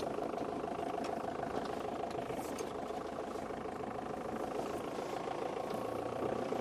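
Game-drive vehicle's engine running steadily at low revs, an even hum that holds the same pitch and level throughout.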